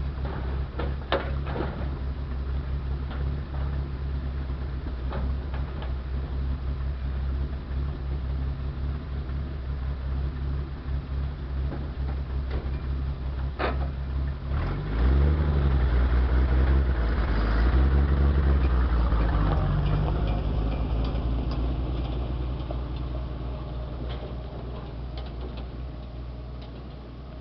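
1955 Willys pickup's Super Hurricane straight-six idling, with a few sharp knocks. About fifteen seconds in, the engine revs up and the pitch rises and falls twice as the truck pulls away through the gears. The engine sound then fades steadily as the truck drives off.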